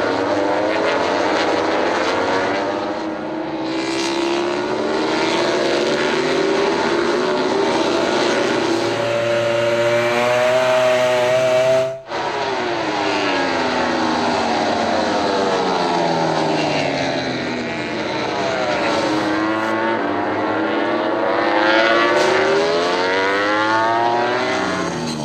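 MotoGP racing motorcycles' four-cylinder engines at high revs as the bikes pass at speed. Their pitch rises through the gears and sweeps down as they go by and brake. The sound breaks off for an instant about halfway through.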